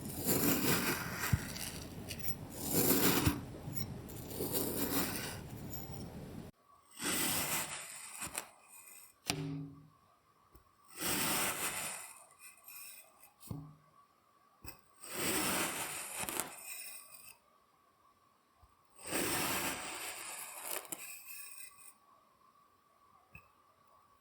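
Kinetic sand being cut and crushed: dense crunching and scraping for about the first six seconds, then separate scraping strokes about a second long, one every three to four seconds.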